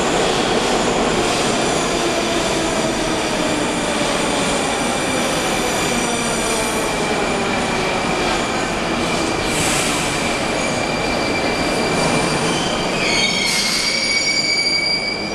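Moscow Metro trains at the station platform: high-pitched wheel squeal and the whine of traction motors over steady rumble and hiss. The whine falls in pitch over the first half, a new squeal sets in with a short upward glide about 13 seconds in, and the whine rises again near the end.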